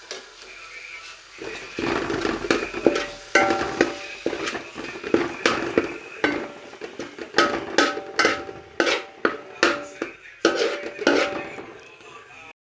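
A spoon stirring and scraping tomatoes in a wide uruli cooking pot over the heat, knocking against the pot's sides. It makes repeated short clinks that ring briefly, two or three a second, starting about a second and a half in.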